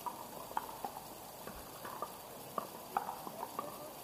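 Pickleball paddles striking the hard plastic ball: sharp, irregularly spaced pops, some louder than others, the loudest about three seconds in.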